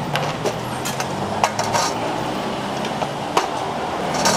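Street traffic noise with a vehicle engine running steadily, and a few short, sharp clinks of metal cookware being handled.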